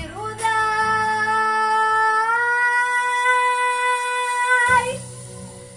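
The end of a song: a solo singer holds one long final note for about four seconds over backing music. The note steps slightly up in pitch midway, then stops, and the accompaniment fades out.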